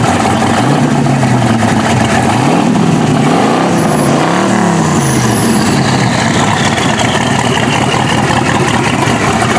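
Twin-turbo 5.8-litre V8 in a 1978 Datsun, freshly started, blipped up and down in revs four times in the first five seconds, then settling into a steady idle. A high whine slowly falls in pitch after the revs.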